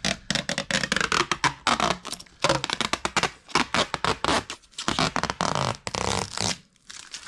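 Clear protective plastic film being peeled off a new number plate: a dense, fast run of sharp crackles and crinkles that stops about six and a half seconds in.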